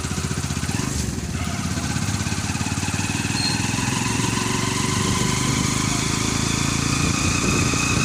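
Engine of the vehicle being ridden, running steadily with a fast, even low throb. A thin whine climbs slightly in the second half.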